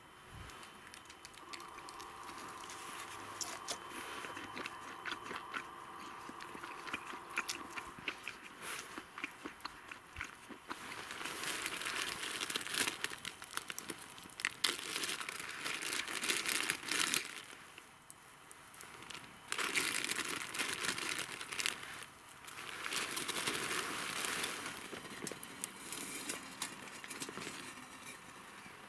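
Wood campfire crackling and popping, with irregular clicks over a hiss, louder in stretches.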